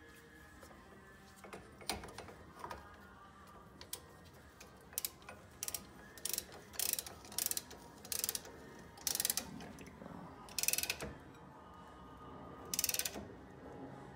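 Brake caliper spreader tool clicking in a dozen or so short ratcheting bursts as it is cranked, coming faster in the middle. It is pushing the caliper pistons and pads back to make room for thicker new rotors.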